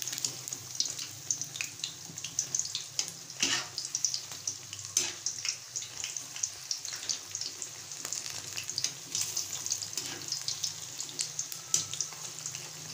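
Gram-flour pakoras deep-frying in hot oil in a kadai on a low flame: a steady sizzle full of small crackles, with a few louder pops.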